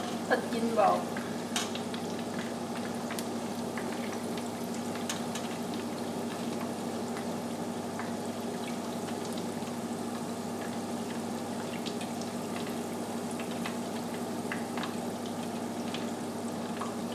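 Chicken wings deep-frying in a pot of peanut oil: a steady sizzle with many small scattered crackles and pops, over a steady low hum.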